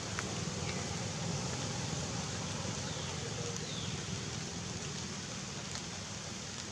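Steady rushing outdoor noise with a few faint, short, high squeaks.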